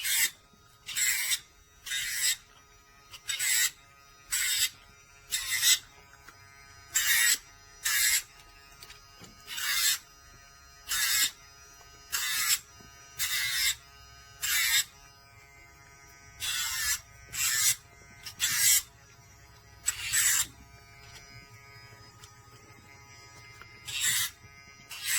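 Electric dog nail grinder's motor running with a faint steady whine, while its rotating grinding drum rasps against the dog's nails in short strokes about once a second, with a pause of a few seconds near the end.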